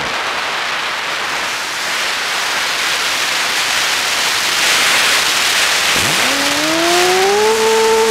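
FPV model plane with its motor throttled off: loud wind rushing over the airframe and onboard microphone as it glides and dives, swelling towards the bottom of the dive. About six seconds in the motor and propeller spool back up with a rising whine that levels off into a steady drone.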